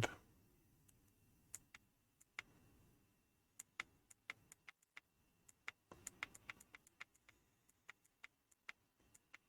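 Faint, irregular clicks of the Pinecil soldering iron's small push buttons being pressed to scroll through its settings menu, a cluster of quick presses about six seconds in.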